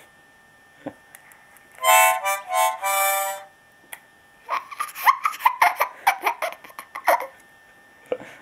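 Three short chords blown on a small toy-sized harmonica, each about half a second long, starting about two seconds in. Then a toddler giggles in quick choppy bursts for a couple of seconds.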